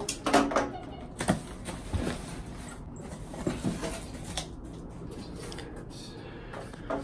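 Cardboard shipping box being opened by hand: flaps pulled apart and a loose cardboard insert lifted out, with scattered knocks and rustles that come thickest in the first couple of seconds.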